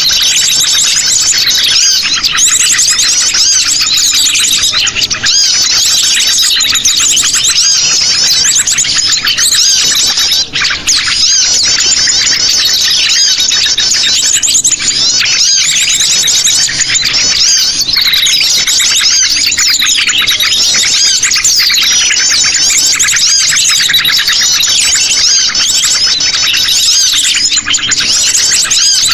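Busy, nonstop chattering of sogon birds: many high chirps and trills overlapping without pause. It is a looped lure recording of the kind played to draw wild birds in for trapping.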